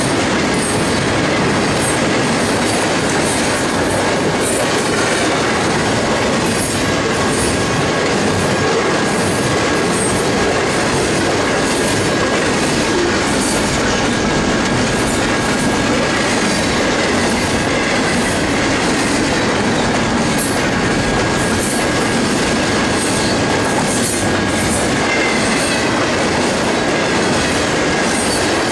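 Double-stack intermodal container train rolling past at speed: the steel wheels clatter over the rail joints and the cars rumble steadily, with a thin steady high tone above the noise.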